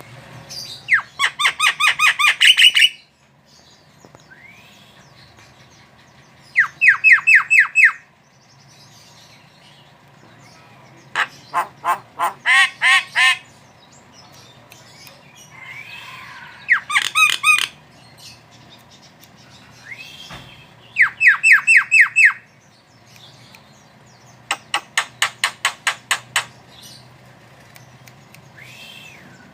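Javan myna calling in six bouts of rapid, harsh chattering notes, each bout lasting one to two seconds with pauses of a few seconds between. A few short, arching whistled notes come between the bouts.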